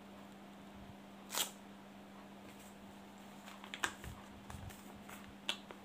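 Light handling of a clear plastic drill-bit case: one sharper click about a second and a half in, then a few faint clicks and taps, over a steady low hum.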